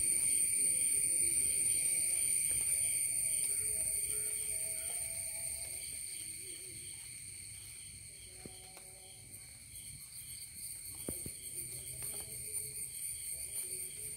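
A chorus of insects chirring steadily in several shrill high bands. It fades through the middle and comes back near the end with a fast pulsing beat, over a few faint clicks and short, lower-pitched calls.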